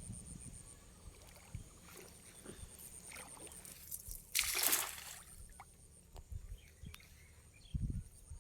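Water sloshing and splashing during fishing, with one louder splash about four and a half seconds in and a few low thuds near the end. A faint steady high-pitched whine runs underneath.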